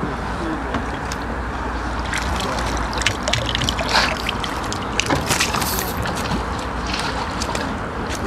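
A hooked crucian carp splashing at the water's surface, then water sloshing as it is scooped into a landing net. The splashes cluster in the middle, loudest about four seconds in.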